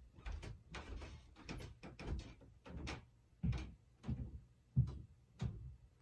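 Irregular soft knocks and thumps, about one or two a second, from a stretched canvas being handled and tipped by hand. The loudest come about three and a half and five seconds in.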